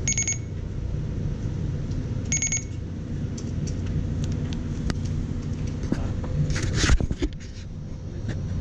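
Furuno FS-2570 radio control unit giving two short, fast-pulsing electronic beeps about two seconds apart, over a steady low hum. Near the end comes a burst of clattering and rubbing as the control unit is picked up and handled, the loudest part.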